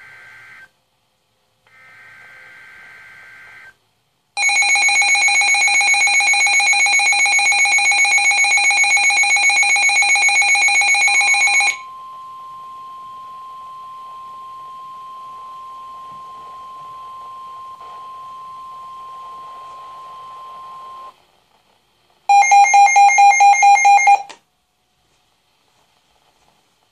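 NOAA weather radio receiving an EAS test tornado warning. It opens with two short two-tone SAME data bursts. A loud pulsing electronic alert beep from the radio follows for about seven seconds, then the steady 1050 Hz NWS warning alert tone for about nine seconds. Near the end comes another loud pulsing alert beep, about two seconds long.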